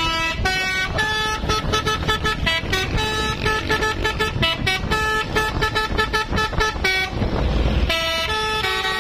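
Telolet basuri horn on an odong-odong road train playing a fast tune of short honked notes over engine and road rumble. The tune breaks off for about a second around seven seconds in, then starts again.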